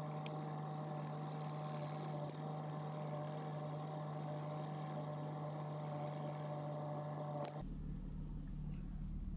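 Mercedes CLK 320's V6 engine idling, heard from inside the cabin as a steady low hum with a few faint higher tones; the hum changes character abruptly about seven and a half seconds in.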